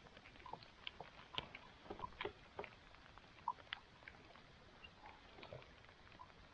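Faint, irregular light clicks and taps, about one or two a second, from a spinning rod and reel being handled in a plastic fishing kayak.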